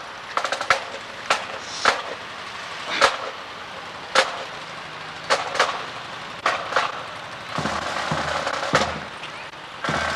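A series of sharp, irregularly spaced cracks, about a dozen, with a low rumble in the second half. Bagpipes start up right at the end.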